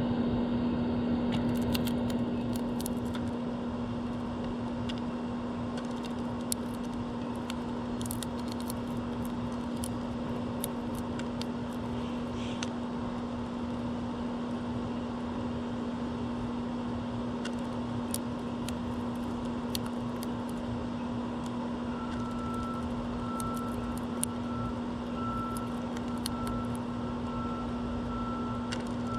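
Steady mechanical hum with one constant low tone over a rumble, with short high ticks scattered through. Over the last several seconds a faint high note repeats in short dashes.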